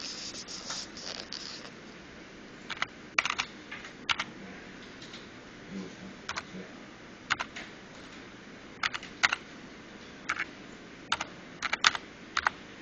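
Key presses on a computer keyboard: scattered sharp clicks, some single and some in quick pairs, at irregular intervals.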